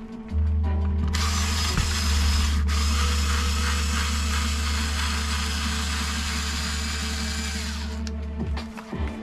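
Electric screwdriver running steadily as it backs out a screw; it starts just after the beginning and stops about a second before the end.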